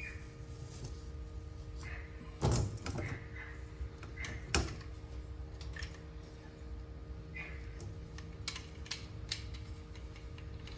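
Scattered small clicks and knocks of hand work on a window screen frame as the rubber spline is pressed into its channel, with two louder knocks about two and a half and four and a half seconds in.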